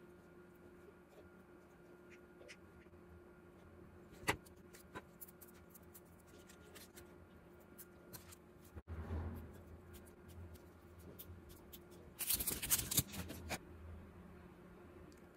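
Small scissors snipping and light clicks and rustles as pressed dried flowers and leaves are cut and picked apart, over a faint steady hum. About twelve seconds in comes a louder burst of crackly rustling lasting a second or so.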